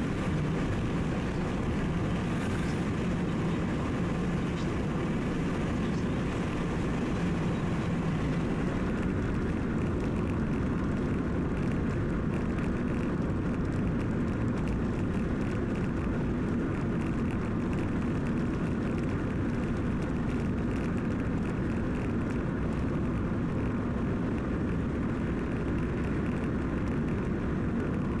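Steady drone of a car driving along a highway: engine and tyre noise at cruising speed.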